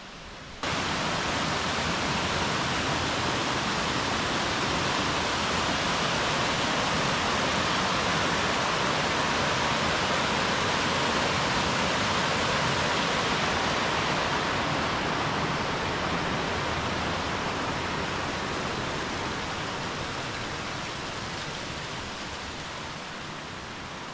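Rushing stream water: a steady hiss of flowing water that starts abruptly about half a second in and slowly grows quieter over the last several seconds.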